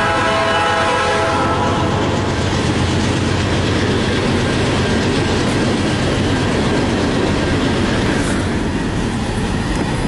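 Diesel freight locomotive horn sounding a multi-note chord that fades out about a second and a half in. It gives way to the steady loud rumble and clatter of a long CN manifest freight train rolling past through a grade crossing.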